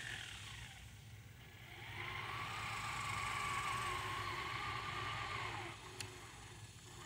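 Traxxas TRX4 Sport RC crawler's electric motor and drivetrain whining as it drives through shallow creek water. The pitch rises about a second and a half in, holds steady, then drops away near the end, followed by a single sharp click.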